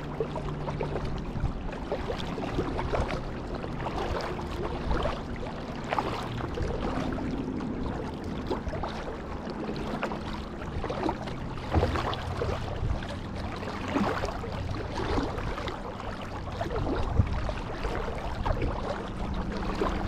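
Water splashing and lapping around a kayak, with irregular paddle splashes and drips, over a faint low steady hum.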